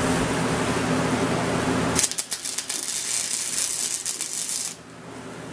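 Wire-feed (MIG) welder arc crackling and sputtering for about two and a half seconds while welding steel door-frame bars, starting about two seconds in and cutting off abruptly. Before it, a steady low hum.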